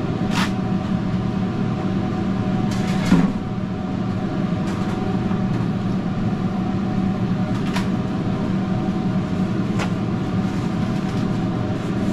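Steady mechanical hum of kitchen machinery running, with a few light clicks and knocks on stainless steel as a griddle is wiped down; the loudest knock comes about three seconds in.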